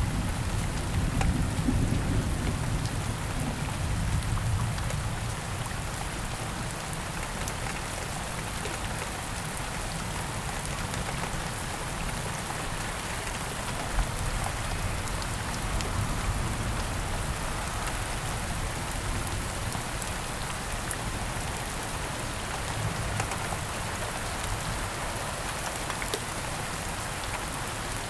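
Steady rain falling, with a low thunder rumble dying away over the first few seconds.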